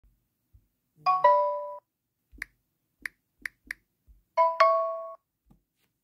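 Smartphone alert chime, a descending two-note ding-dong, sounding twice about three seconds apart, with four short clicks in between.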